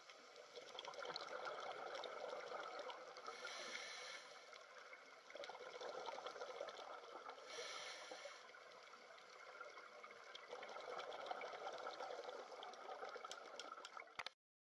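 Faint underwater water ambience: a steady trickling, bubbling hiss that swells every few seconds and cuts off suddenly near the end.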